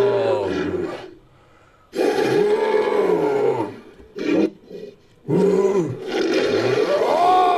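Sound-effect creature roars made for a fictional fish-like humanoid. There is a series of pitched calls that bend up and down in pitch, broken by short pauses, with two brief calls in the middle.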